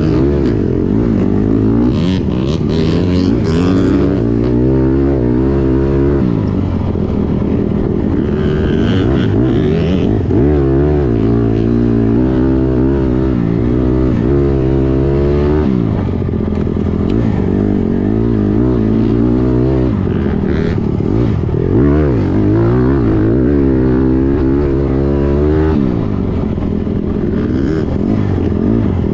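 Dirt bike engine being ridden hard, revving up and dropping back over and over, its pitch climbing and falling every few seconds.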